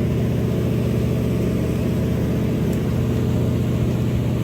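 A fishing boat's engine running steadily: a low, even drone that holds at one pitch.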